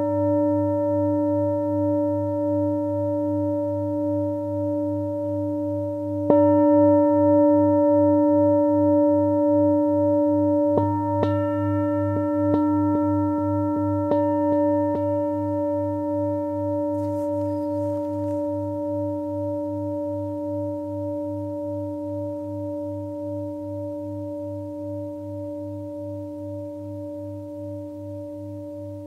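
Singing bowl ringing with a slow, wavering hum, struck again about six seconds in and then tapped lightly several times between about 11 and 15 seconds. The ringing then fades slowly.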